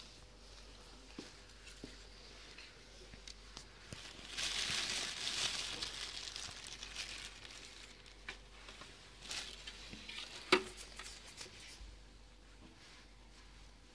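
Clear plastic bag crinkling as a gloved hand pulls a beef eyeball out of it, loudest for about four seconds from roughly four seconds in, then one sharp knock about ten seconds in.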